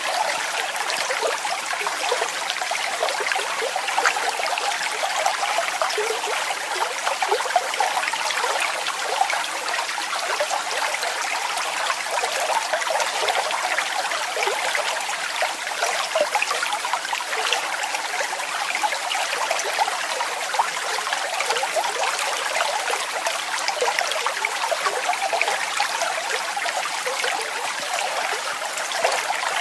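Waterfall: a steady rush of falling water, full of small splashes, with no deep rumble.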